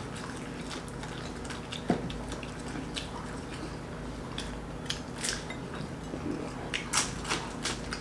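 Samosas being eaten: scattered crackles and clicks of biting and chewing crisp fried pastry, with a single knock about two seconds in.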